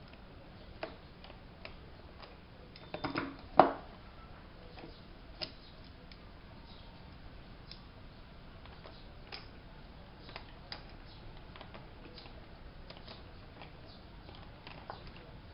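Scattered small clicks and taps of objects being handled, with a louder cluster of knocks about three and a half seconds in.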